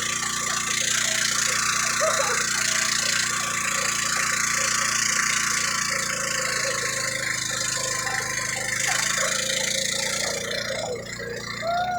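Motorboat engine running steadily under a constant wash of wind and water noise; the noise thins about ten and a half seconds in.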